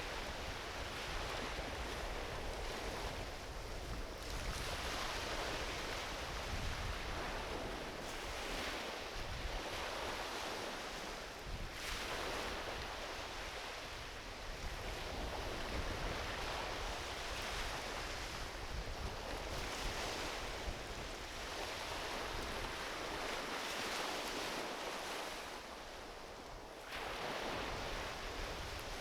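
Small ocean waves breaking and washing up a beach, surging and easing every few seconds. A sudden louder surge comes near the end.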